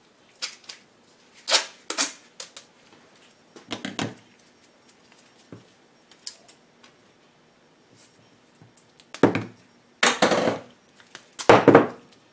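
Strips of tape being pulled, torn and pressed down by hand: a string of short, irregular ripping and rustling noises, the loudest three in the last few seconds.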